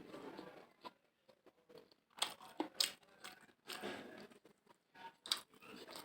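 A person eating mutton biryani close to the microphone: irregular wet chewing and smacking sounds with sharp clicks, heaviest about two to four seconds in.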